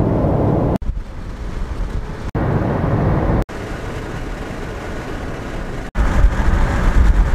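Car road and wind noise heard from inside the cabin while driving on a highway: a steady rumble and rush. It breaks off abruptly four times where clips are joined, and the last stretch is louder, with more low rumble.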